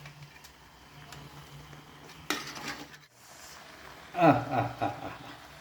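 A metal spoon or ladle clinks and scrapes against a cooking pot about two seconds in, over a low steady hum; a man speaks briefly near the end.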